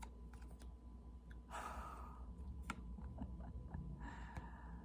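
A person's soft breathy exhales, like sighs: one about one and a half seconds in and another near the end, with a few small clicks between them.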